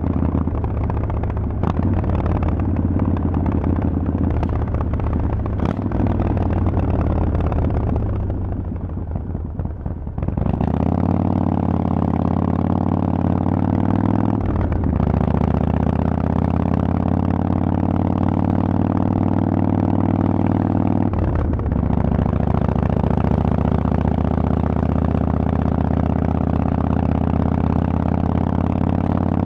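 Harley-Davidson Forty-Eight 1200's air-cooled V-twin through loud Vance & Hines exhaust pipes, heard on the move: running steadily, easing off for a couple of seconds, then accelerating from about ten seconds in, its pitch climbing slowly, with two brief breaks for upshifts.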